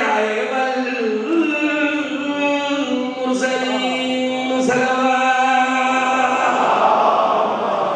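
A man's voice chanting a qasida in a sung recitation, holding long drawn-out notes.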